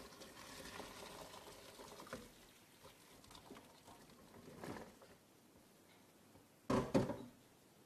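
Hot vinegar pouring from a steel pot into a plastic colander and draining through it, fading after about two seconds to a light patter as the boiled wild asparagus slides out. Two short knocks come near the end.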